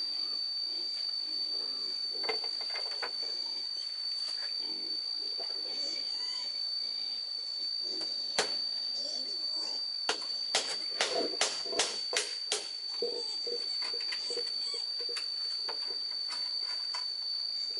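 A steady high-pitched whine, with sharp knocks over it: one a little before the middle, then a quick run of about nine in under three seconds.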